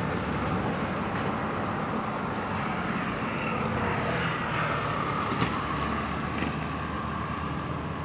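Steady low engine rumble under a noisy outdoor background. A higher whine swells up through the middle and eases off again, with a single short click just after the middle.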